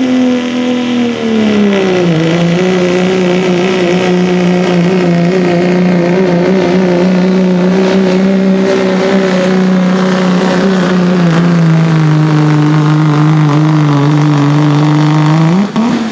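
Dodge Ram pickup's Cummins diesel inline-six at full throttle under load, pulling a weight-transfer sled. The engine note drops in pitch over the first two seconds as the load builds and it lugs down, then holds steady with a high whistle above it. Near the end it briefly rises sharply in pitch.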